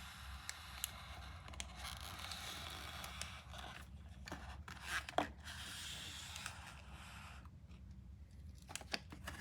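Candy packaging being torn open and crinkled by hand: steady rustling and tearing with sharp crackles, dying down near the end to a few isolated clicks.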